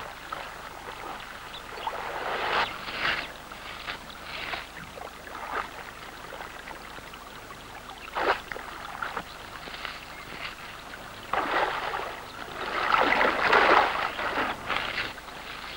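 A hooked salmon still fighting on the line, splashing and thrashing at the surface of shallow water in irregular bursts, the longest and loudest run about thirteen seconds in, over the steady sound of the river.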